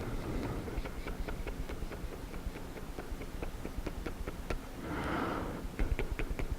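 Close-miked wet mouth sounds: a quick run of sticky lip and tongue clicks and smacks, with a breathy slurp about five seconds in.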